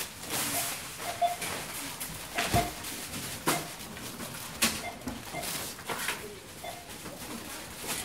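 Supermarket checkout scanner beeping, several short beeps at an uneven pace, mixed with knocks and clatter from goods being handled at the till.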